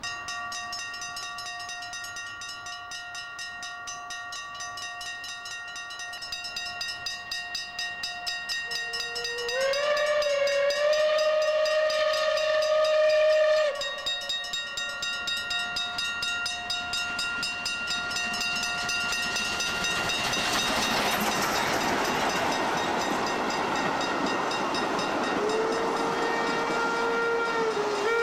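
Level-crossing bell ringing steadily with a fast pulse as a train hauled by class 23 steam locomotives approaches. A steam whistle sounds for about four seconds a third of the way in, gliding up at its start; later the noise of the passing train swells, and a second, lower steam whistle starts near the end.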